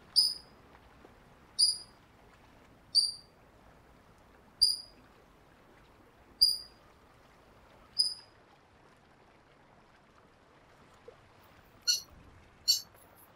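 Eurasian coot calling: six short, sharp, high-pitched notes about one and a half seconds apart, then two rougher, rattling calls near the end. The calls are the alarm call a parent coot gives from a distance to lure a predator away from its chicks or eggs.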